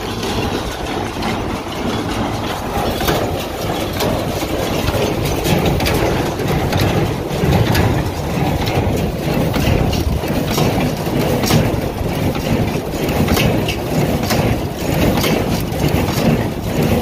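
Massey Ferguson 124 square baler working behind a running tractor, its mechanism clacking over and over over the engine, with wind buffeting the microphone.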